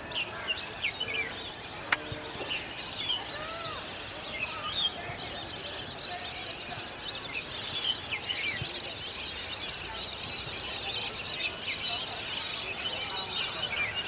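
Large flock of ducks on the water calling together: a dense, unbroken chorus of many short, high chirping calls over steady outdoor background noise. A single sharp click about two seconds in.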